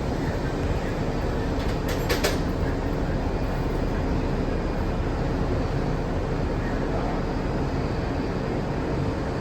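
R62 subway train running along the track: a steady rumble of wheels on rail with a faint steady hum, and a short burst of sharp clicks about two seconds in.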